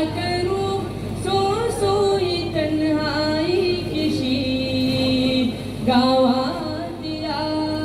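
A boy singing a Nawayati song solo into a microphone, drawing out long held notes with slow slides between them.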